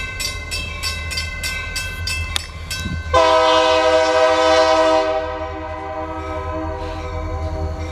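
A bell rings at about four strokes a second. About three seconds in, an approaching SD40-2 diesel locomotive sounds its horn in one long chord blast, loudest for its first two seconds, over a low rumble.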